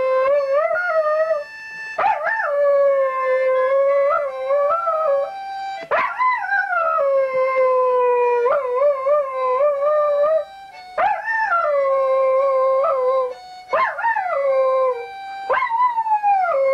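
Harmonica playing long held notes while a dog howls along, its howls rising, wavering and sliding down in pitch several times.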